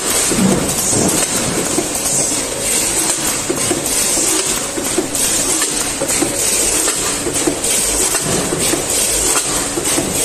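Tin-can filling line with a multihead weigher running: steady mechanical clatter with frequent small clinks as portions of chips drop down the funnel into tin cans on the conveyor, over a steady high hiss.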